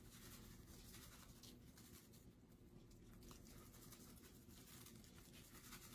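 Near silence, with faint scratchy rustling as dry ranch seasoning is sprinkled from a packet over food.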